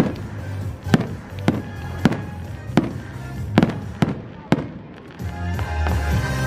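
Fireworks exploding in a display, about eight sharp bangs at uneven intervals over the first four and a half seconds, over a bed of music that gets louder near the end.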